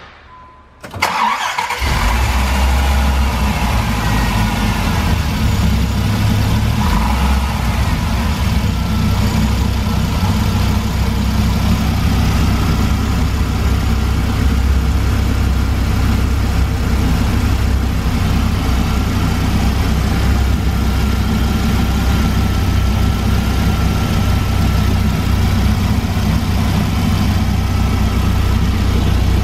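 First-generation 1994 Dodge Viper's 8.0-litre V10 starting: it turns over briefly about a second in, catches, and settles into a steady idle.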